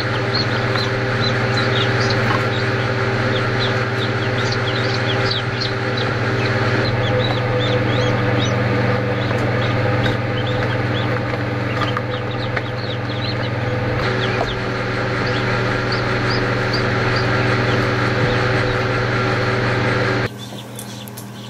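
Many newly hatched ducklings peeping in short, high, falling chirps, several a second, over the steady hum of the homemade egg hatcher. The level drops sharply near the end.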